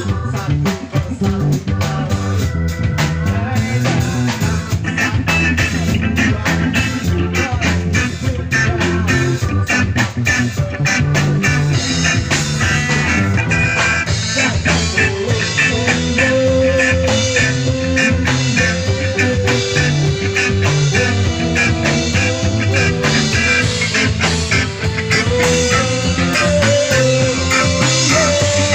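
Live band playing rock music: electric guitars, bass guitar and drum kit, with drum hits throughout and held guitar or vocal notes in the second half.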